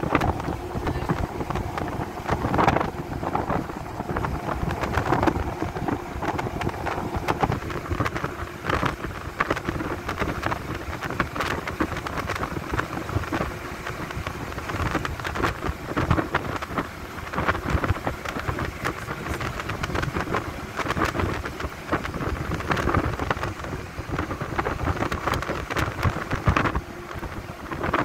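Wind rushing and buffeting against the microphone of a moving vehicle, over the vehicle's steady road noise and a faint low hum.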